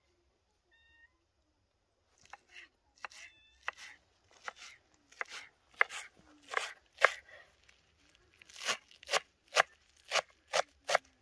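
Large kitchen knife chopping green pepper and fresh herbs on a wooden cutting board. The strokes start about two seconds in, sharp and irregular, then settle near the end into a steady chop about twice a second.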